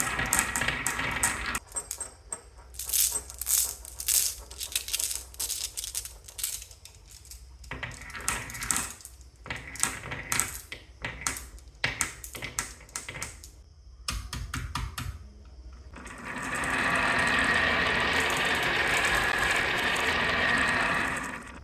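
Marbles clattering down a marble run: many quick clicks and knocks as they drop and hit the track pieces. Later a steady rolling rush of marbles running along a track for about five seconds, which cuts off near the end.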